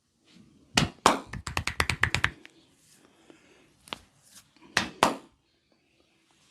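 Hands striking a head in an Indian head massage. One sharp slap comes first, then a fast run of about eight slaps in just over a second, then a few more spaced strikes.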